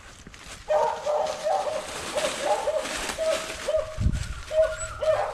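Beagle yipping over and over in short, high, pitched notes, about two to three a second, starting about a second in, over rustling in dry leaves and brush.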